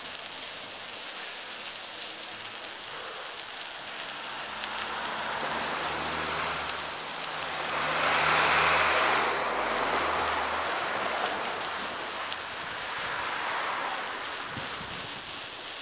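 A truck passing close alongside a bicycle: its engine hum builds over several seconds, is loudest about halfway through as it goes by with a brief high whine, then fades. Steady wind and tyre noise underneath.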